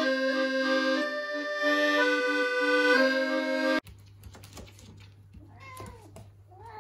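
Accordion music that cuts off suddenly about four seconds in. Then a cat meows twice, the second call long and wavering, over a low hum and a few small knocks.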